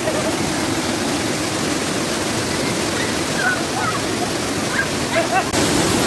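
Waterfall pouring into a rocky pool: a steady rush of falling water, with its character changing abruptly near the end.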